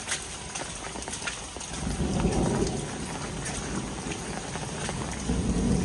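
Heavy rain falling steadily on roofs and wet paving, with close drips ticking. A low rumble swells about two seconds in and again near the end.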